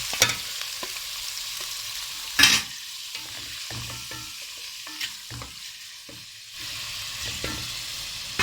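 Cubes of cuttlefish sizzling in hot oil in a pan while being stirred, with scattered clicks and one loud knock about two and a half seconds in.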